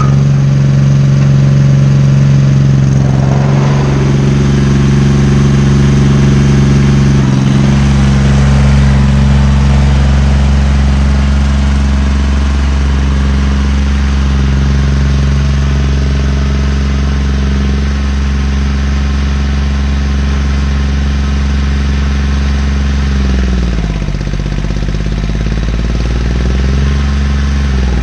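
Compact tractor's engine running steadily while working the soil. Its speed dips and picks up again near the end.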